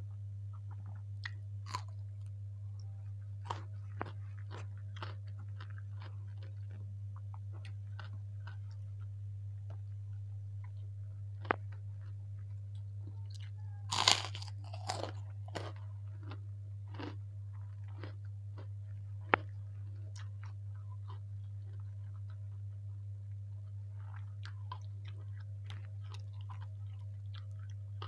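Close-miked eating: crisp bites and chewing of a meal of fried rice with cucumber slices and kerupuk crackers, scattered crunches with the loudest burst of crunching about halfway through, over a steady low electrical hum.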